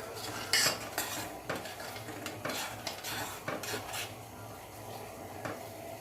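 A spoon stirring in a pot of boiling water to mix in ground spice powder, clinking and scraping against the pot a few times a second. The stirring eases off about four seconds in, with one last clink later.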